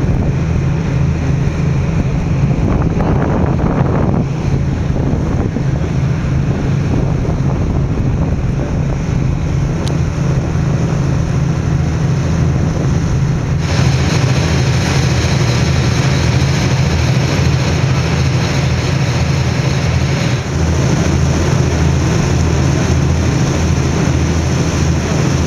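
Tour boat's engine running with a steady low drone, under a rush of wind on the microphone and water along the hull. The hiss grows brighter about 14 seconds in.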